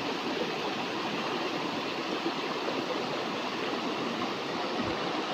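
Steady rush of flowing water from a stream fed by a waterfall.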